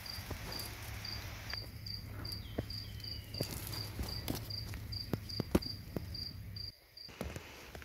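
An insect, cricket-like, chirping in a steady high-pitched pulse of about three chirps a second, cutting off about a second before the end. Scattered light clicks and taps sound over it.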